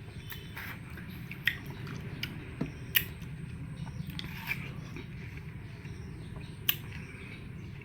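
Close-up biting and chewing of watermelon, with scattered sharp clicks, the loudest about three seconds in and near the end, over a steady low hum.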